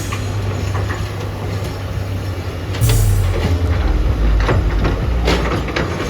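Diesel engine of heavy earthmoving machinery running steadily, with a loud clatter just under three seconds in and a few sharper knocks later.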